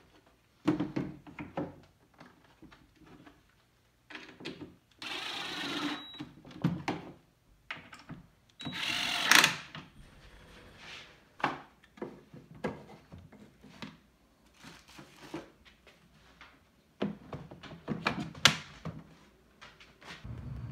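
Small cordless screwdriver driving screws into wooden boards in two short runs of about a second each, amid knocks and clatter of wood pieces being handled.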